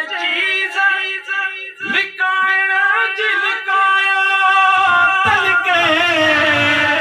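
A man singing a Sindhi naat without instruments, holding long ornamented notes that waver in pitch.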